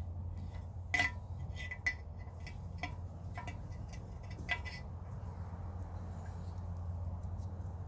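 A handful of light clicks and clinks of small parts being handled during the first half, the loudest about a second in, over a steady low hum.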